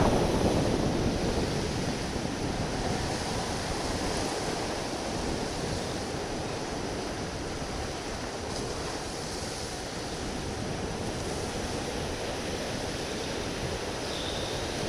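Wind buffeting a small camera microphone over surf washing against sea rocks: a steady rushing noise.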